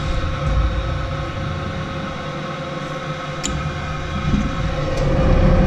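Lennox EL296 two-stage gas furnace running on its first stage: a steady hum from the combustion inducer motor over a low rumble, with a faint tick about three and a half seconds in and another about five seconds in.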